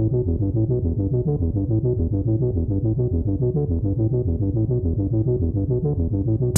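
Background music: a synthesizer keyboard playing a steady, evenly pulsed run of low notes.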